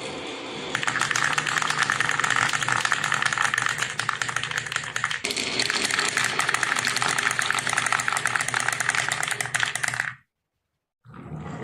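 Marbles rolling and clattering down a wooden marble run, a dense run of rapid clicks and rattles that cuts off suddenly near the end.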